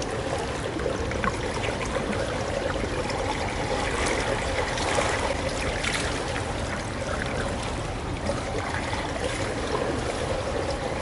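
Swimming pool water lapping and trickling steadily as people swim through it, with faint small splashes.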